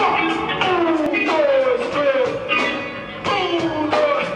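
Reggae band playing live, with electric guitars and drums keeping a steady beat and a melody line that slides down in pitch again and again.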